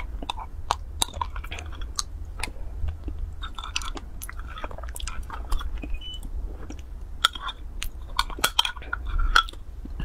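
Close-miked eating sounds: wet chewing and smacking of lips and tongue on a soft food, with irregular sharp clicks. A metal spoon scrapes and clinks in a glass mug.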